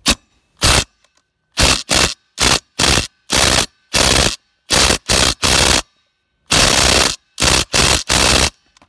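Ryobi brushless cordless impact driver hammering in about fourteen short bursts of trigger pulls, some brief and some held for over half a second, trying to break loose a tight tractor lug nut.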